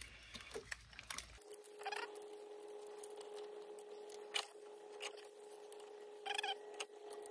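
Gloved hand sloshing and handling plastic keyboard membrane sheets in a glass baking dish of liquid: faint splashing and dripping, a few sharp clicks, and short squeaks about two seconds in and again near the end.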